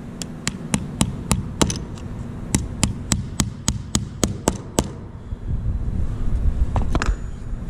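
Small hammer tapping a small nail, held in needle-nose pliers, through a glued plywood gusset into a wooden aircraft rib: quick light taps, about three or four a second, in two runs with a short pause about two seconds in, and a click or two near the end.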